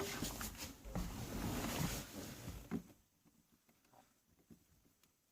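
Hands working at a car's interior trim panel: a couple of seconds of rustling and scraping with a few clicks, then only faint small ticks from about three seconds in.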